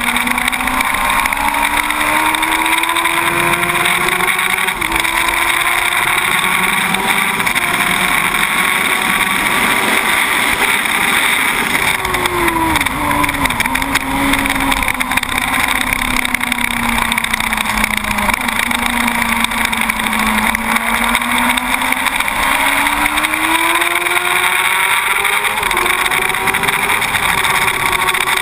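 2006 Yamaha R1 SP inline-four engine at full lap pace: revs climb in steps through upshifts, drop with quick downshifts under braking about halfway through, stay low through a corner, then climb again with another upshift near the end. A steady rush of wind noise runs underneath.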